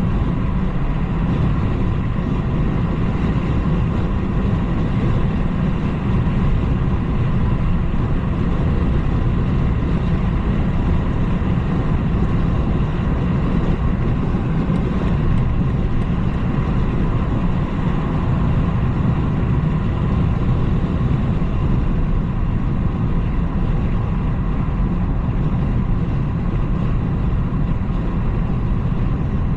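BMW 330i (G20) on the move: its 2.0-litre turbocharged four-cylinder engine running under a steady, low rumble of road and tyre noise, with no revving or gear changes standing out.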